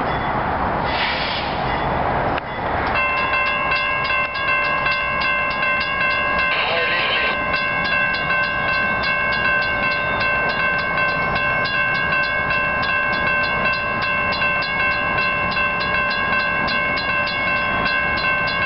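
A railroad crossing bell starts ringing about three seconds in, a steady, evenly paced ding of about four strokes a second, as a train approaches. Before it there is a rumbling noise, and a brief higher sound cuts in about seven seconds in.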